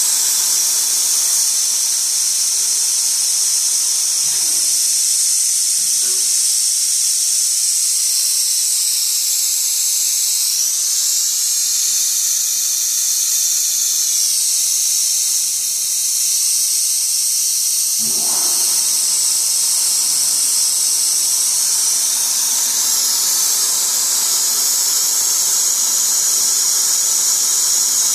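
Compressed-air mist coolant nebulizer on a CNC router spraying with a loud, steady hiss, with fainter machine tones beneath that shift about two-thirds of the way through.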